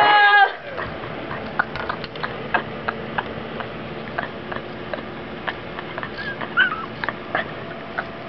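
A woman's long, high, held scream breaks off about half a second in. It is followed by quiet, stifled whimpers and small squeaks through a hand held over her mouth, with scattered clicks.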